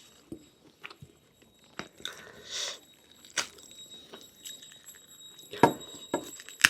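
Close-up eating sounds: chewing and biting on lamb meat, with scattered wet clicks, a short noisy smear about two seconds in, and two louder snaps near the end.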